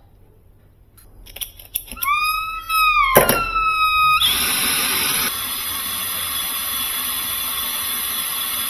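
A soldering torch being lit and then burning: gas whistling as the valve is opened, a sharp click of the igniter, then a steady loud hiss of the flame as the copper refrigerant-line joint is heated for soldering.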